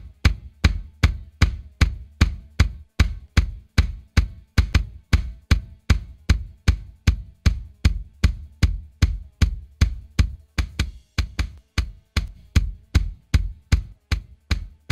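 A kick drum track playing on its own in a steady repeating pattern, about three hits a second, some hits a little louder than others. It runs through a multiband tube compressor plugin whose mid band, carrying the drum's smack, is being gently compressed and turned down.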